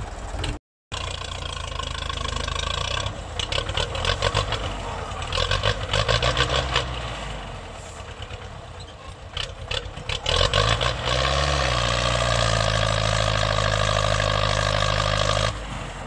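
Belarus MTZ-50 tractor's diesel engine working hard to pull a heavily loaded sugarcane trailer through mud, with irregular knocking and rattling. About ten seconds in it revs up and holds a steady higher pitch, then drops away near the end.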